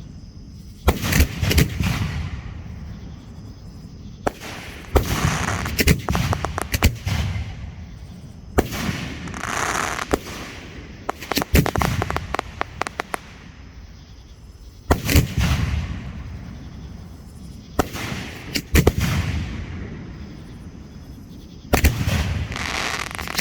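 Hand-fired display fireworks going off in a series of sharp bangs every few seconds, some followed by rapid crackling, with low rumble trailing between the bursts.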